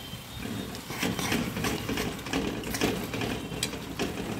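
A steel spatula stirring and scraping a spice paste as it fries in bubbling oil in a metal kadai, with irregular clicks and scrapes from about a second in.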